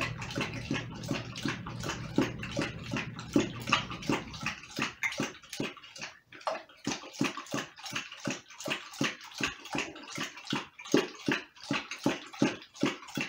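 Dogo Argentino licking and lapping at raw meat in a stainless steel bowl, a run of short wet licks and slurps about two or three a second.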